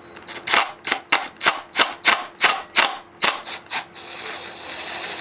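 A run of about ten sharp metal hammer blows, roughly three a second, on a tool loosening the crankcase bolts of a Moster 185 paramotor engine. Near the end comes a steady high-pitched whine with a hiss, like a small power-tool motor.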